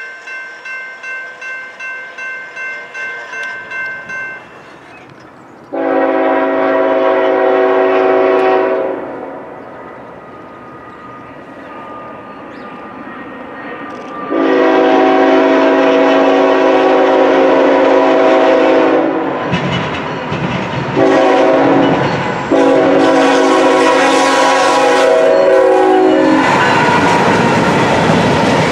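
A grade-crossing bell dings rapidly, about three strokes a second, for the first few seconds. Then a GE ET44AC locomotive's air horn sounds the grade-crossing signal as it approaches: long, long, short, long. Near the end the horn stops and the locomotive's diesel engine and wheels pass close by with a loud rumble.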